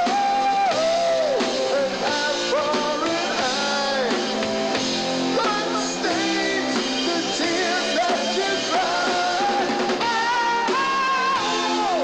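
Rock band playing live: a lead vocal holding long, wavering notes over electric bass, electric guitar and drum kit.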